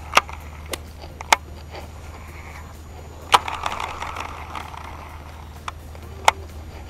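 Scattered sharp clicks and knocks, about six of them, over a steady low hum, with a brief hiss following the loudest click a little over three seconds in.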